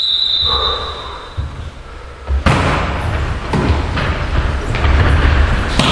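A referee's whistle blast at the start, then about two and a half seconds in the sharp smack of a volleyball being served, followed by further ball hits in the rally, echoing in a gym hall.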